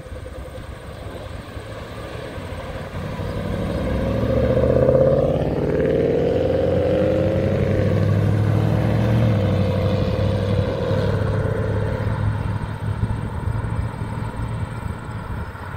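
Cars driving past one after another as they leave. The engine sound builds to its loudest about five seconds in, with a falling pitch, then holds as a steady low hum and fades as the cars move off down the road.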